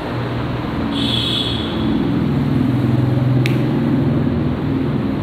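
Steady low mechanical hum filling the room, its pitch stepping slightly higher about two seconds in, with a brief high squeak about a second in and a single sharp click later.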